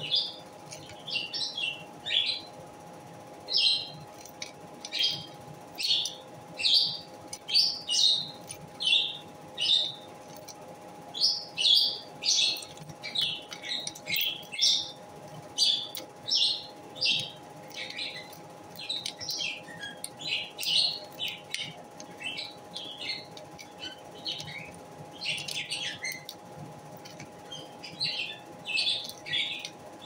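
A lovebird making repeated short, high chirps, about one to two a second, sometimes in quick clusters.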